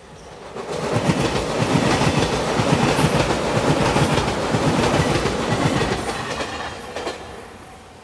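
Five-car JR Shikoku Shiokaze limited express, an 8000 series electric train in white Anpanman livery, passing close by at speed, its wheels clattering over the rail joints. The sound swells up about a second in, holds, and fades away near the end.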